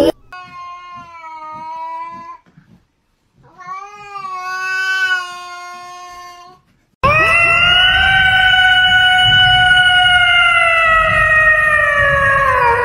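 Cats meowing: two drawn-out meows of two to three seconds each, then a much louder, higher yowl held for about six seconds that drops in pitch as it ends.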